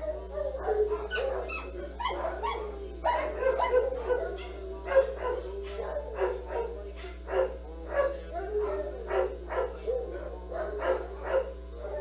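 A dog barking and whining in a long run of short calls, about two a second, over a steady low hum.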